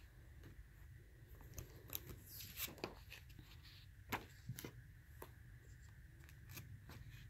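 Paper and card being handled in a cardboard box: soft rustling with a scatter of sharp little clicks and taps, busiest between about one and a half and five seconds in.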